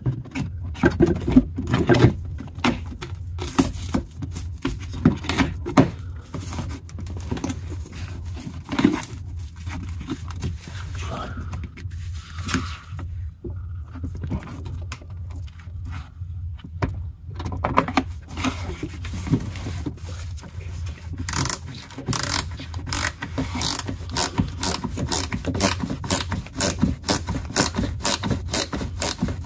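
Screwdriver turning screws into the plastic wheel-arch liner and undertray, with scattered clicks and scrapes of tool and plastic. About two-thirds of the way through, this becomes a fast, even run of clicks, several a second.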